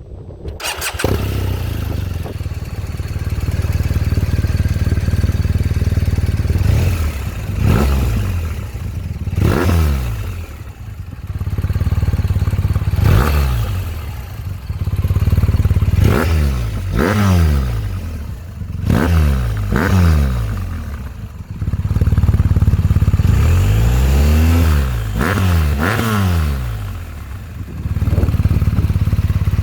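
BMW R 1250 RS boxer-twin engine through a MIVV SR-1 aftermarket exhaust. It comes in suddenly about half a second in, idles, and is revved again and again in short throttle blips, with one longer, higher rev near the end.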